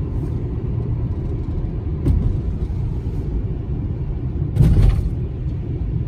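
Steady low road and engine noise heard inside a moving car's cabin, with a short, louder burst of noise about four and a half seconds in.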